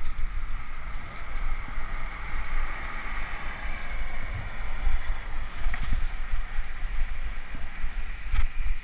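Wind buffeting a helmet-mounted GoPro's microphone during a bicycle ride: a heavy, fluttering rumble. Over it runs a steady hiss of tyres on wet pavement that swells a little in the middle.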